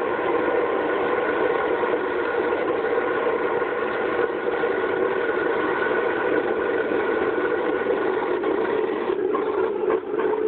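Home-made waste oil furnace running: a steady, unchanging mechanical sound with a constant hum, from its spray-gun-fed oil burner and air supply.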